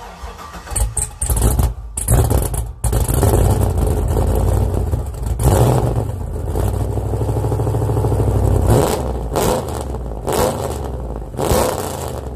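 LS2 V8 engine running loud and being revved several times, with sharp surges over a steady low rumble.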